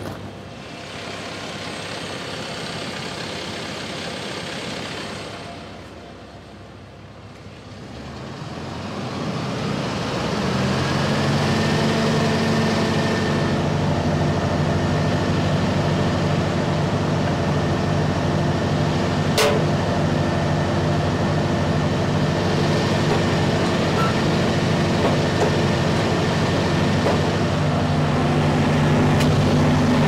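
Bandit Model 90XP wood chipper's 74 hp Kohler diesel engine running. About eight seconds in it speeds up over a few seconds to a steady, higher-pitched hum that holds to the end, with one sharp click about two-thirds through.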